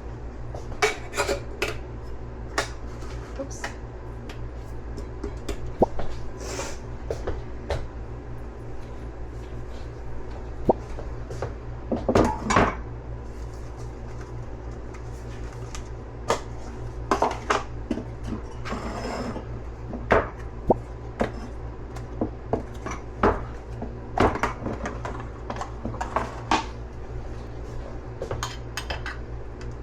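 Dishes and utensils clinking and knocking, with scattered sharp clinks and clatters every second or two over a steady low hum.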